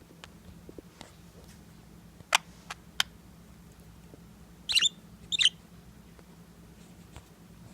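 Budgerigar making soft little sounds: three sharp clicks, then two short chirps about half a second apart, with faint ticking in between.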